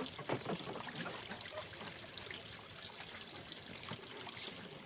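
Water trickling and splashing in a large plastic tub as people sit in it, with small irregular splashes, busiest in the first second.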